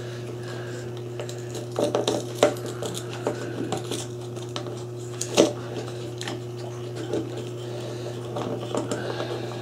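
Scattered light clicks and knocks of a wooden toy bulldozer track's pads clacking together as the track is worked onto its rollers by hand, with a cluster about two seconds in and the sharpest knock about halfway through. A steady low hum sits underneath.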